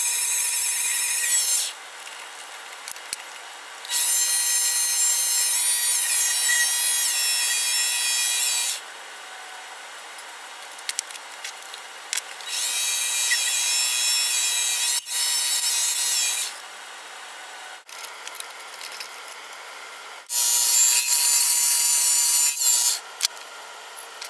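Mini lathe boring out an aluminum part with a boring bar. The cutting gives a high-pitched squeal in four separate passes of a few seconds each, with quieter running and a few sharp clicks between them.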